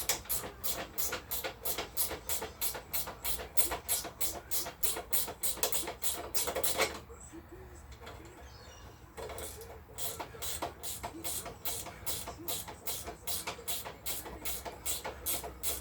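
Rapid, even clicking of a ratchet spanner, about four clicks a second, as nuts are worked off the Honda C50's frame; it stops for about two seconds partway through, then starts again.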